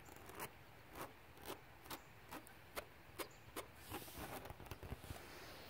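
Fingers scratching the woven fabric of a trampoline jumping mat in short, quick strokes, about two a second, with one longer rub about four seconds in.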